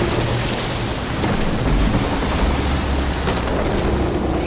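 Storm at sea: a dense rush of wind, driving rain and spray over a wooden sailing ship. A deep rumble sets in about one and a half seconds in and runs on under it.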